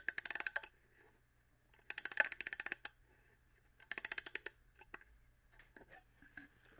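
Three bursts of rapid clicking, each under a second long, followed by a few fainter scattered clicks.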